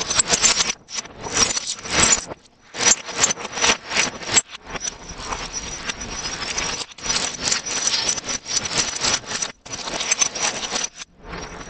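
Plastic and foil candy bags crinkling as hands open and handle them, with pieces of candy pouring out onto a wooden serving tray. The crinkling comes in irregular, dense stretches with brief pauses.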